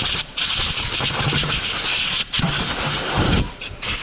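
Compressed-air blow gun hissing in a few long blasts with short breaks, blowing rust dust off the mounting where the old rear wheel bearing came out.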